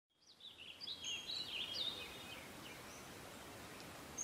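Small birds chirping over a faint, steady outdoor background hiss. The calls are quick high chirps and trills, clustered in the first two seconds, then only one or two.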